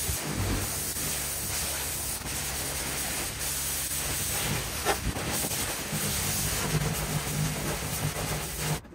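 Pressure washer lance blasting water onto stone paving slabs to strip grime. A steady hiss of spray runs over a steady low hum and cuts off suddenly near the end.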